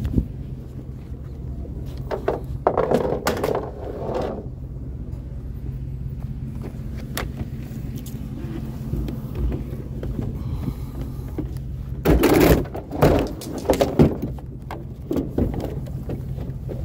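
A vehicle engine running steadily, with two stretches of clattering and rattling, one about two seconds in and a louder one near twelve seconds in.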